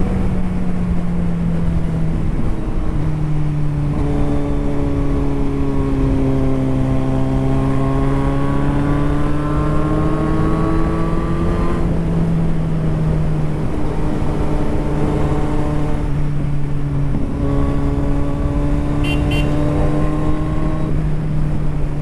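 Motorcycle engine running steadily while under way, its pitch drifting and dropping in steps a few times, as at gear changes.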